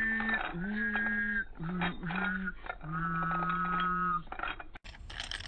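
Morph's nonsense-babble voice played slowed down: four drawn-out, sing-song syllables with held pitches that slide up or down at their starts. A short click and clatter follow near the end.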